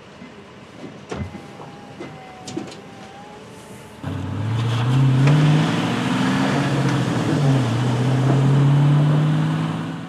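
Minivan engine pulling away: about four seconds in it comes in suddenly and loudly, its note rising, dipping once, then holding steady until it fades near the end.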